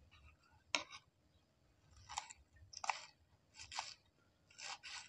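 Kitchen knife slicing through a bunch of green onions on a wooden cutting board: short crisp crunches about once a second, with a single sharp click about a second in.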